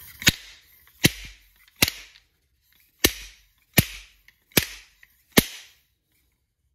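Fork seal driver slammed down the fork tube seven times: sharp metal clacks with a short ring, about three-quarters of a second apart, with a brief pause after the third. Each blow drives a new fork seal into the lower fork leg of a 1973 Kawasaki H1.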